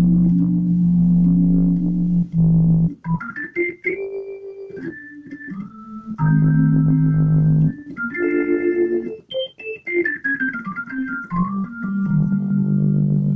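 Hammond C3 organ played through a Leslie 147 speaker: held chords alternating with short notes and quick phrases, including a fast falling run. This is a test of the percussion, which is working again after the zinc dendrite shorts were zapped.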